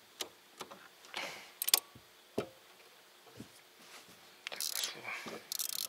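Handling noise of a spinning rod and reel being worked in a boat: scattered sharp clicks and knocks, the loudest two about two seconds in, then rustling near the end.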